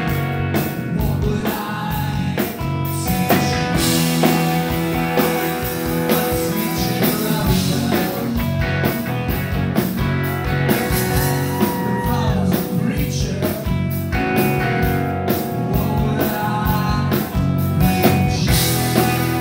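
Rock band playing live: electric guitar, bass and drum kit, with singing.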